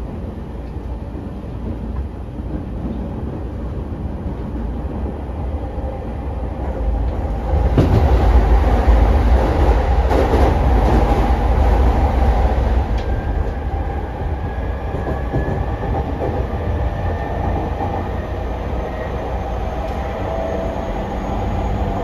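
Running noise inside a JR East E231-0 series electric commuter train car: a steady rumble of wheels on rail. It grows louder for about five seconds from about a third of the way in, with a few light clacks. A faint high whine slowly rises in pitch in the second half.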